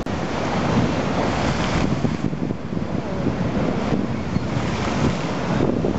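Rough sea in a storm: waves crashing against a harbour sea wall over churning surf, with wind rumbling on the microphone. The hiss of spray is strongest in the first two seconds and thins about two seconds in.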